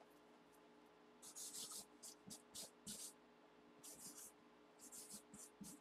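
Felt-tip marker writing on a cardboard box, faint: groups of short, quick scratchy strokes starting about a second in.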